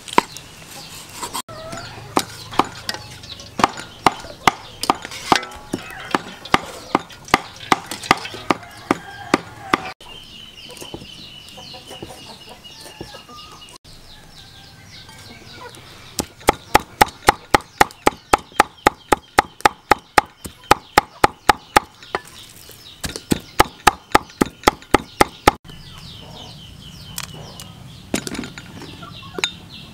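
Meat cleaver chopping pork on a thick wooden chopping block, the blade knocking into the wood. It starts at a steady two strokes a second, then after a pause comes in fast runs of three or four strokes a second as the pork is minced.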